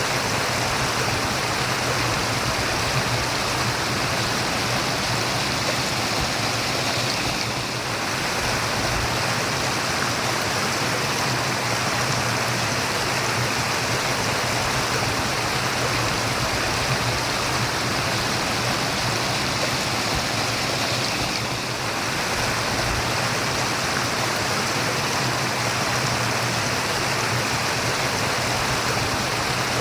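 Steady rushing and babbling of a stream, running water flowing evenly without a break.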